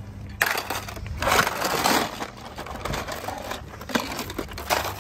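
Toy cars tumbling and crashing down in three noisy, crunching bursts, the longest lasting about a second, with small clicks and clatter between them.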